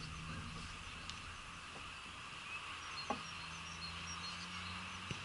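Faint outdoor ambience: a steady hiss with a low hum underneath, and a few faint high chirps about halfway through.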